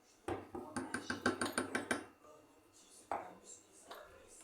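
A spoon clinking rapidly against a dish, about eight quick clinks a second for under two seconds, then one more clink about three seconds in.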